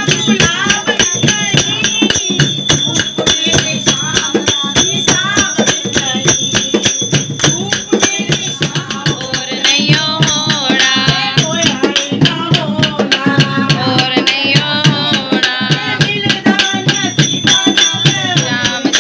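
Upbeat Hindu devotional dance music (a kirtan bhajan) with a fast, steady percussion beat and a melody over it.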